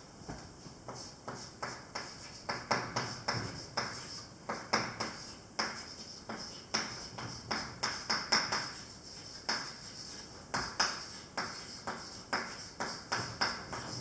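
Chalk writing on a blackboard: an uneven run of sharp taps and short scratches as each letter is stroked onto the board.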